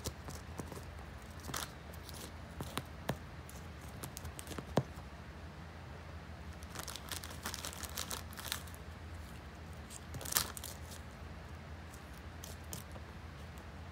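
A cat rummaging with its head in a plastic bag of individually wrapped candy chews, the bag and wrappers crinkling in irregular short rustles and clicks, busiest a little past the middle and again about ten seconds in.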